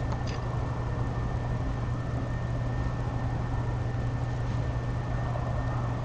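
Steady low hum and hiss with a thin high whine above it, and a faint tick about a third of a second in.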